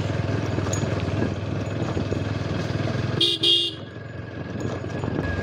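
Motorcycle engine running steadily while riding. About three seconds in, a horn gives two short toots in quick succession, and the engine quietens briefly after them.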